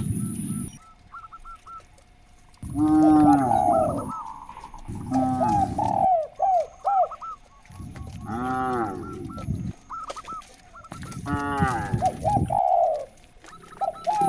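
Cattle mooing: four long calls, each about a second and a half, with shorter, higher calls between them.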